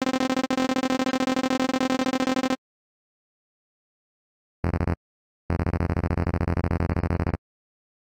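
Synthetic buzzy 'talking' blips of a cartoon's typed-out speech bubbles: a steady-pitched tone pulsing rapidly for about two and a half seconds, then after a pause a lower-pitched one, briefly and then for about two seconds more.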